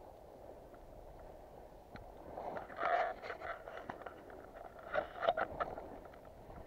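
Rustling and crunching, as of footsteps through dry leaves and brush with clothing and gear brushing along, in two bursts about three and five seconds in.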